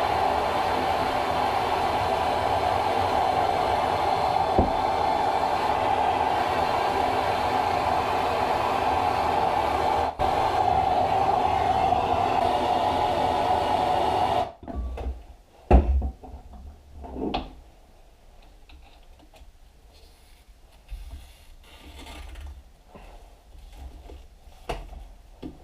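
A steady, loud rushing whir from a tool working on the stuck chain of the engine, breaking off for an instant about ten seconds in and then stopping suddenly about fourteen seconds in. After it come a few scattered metal clanks and knocks from handling the engine parts.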